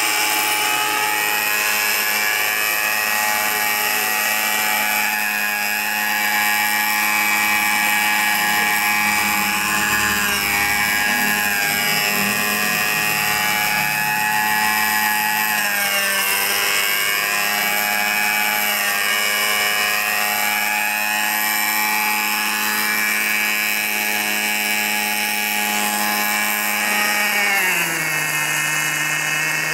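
The two-stroke O.S. MAX-46FX-H glow engine of a HIROBO Lama SA-315B scale RC helicopter runs steadily in flight with its rotors turning, its pitch dipping and rising a few times. Near the end the engine note drops as the model settles on the ground and is throttled back.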